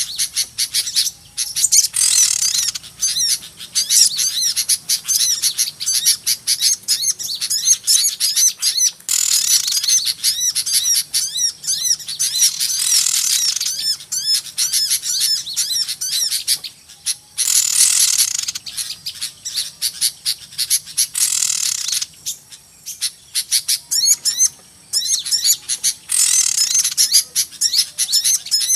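Many small birds chirping and twittering noisily at once, as played on a bird-trapping lure call. The calls are rapid and high, with louder bursts of busy chatter every few seconds.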